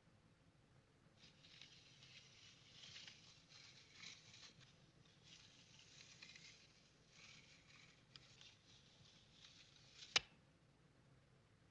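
Near silence: a faint rustling for most of the time, then one sharp knock about ten seconds in.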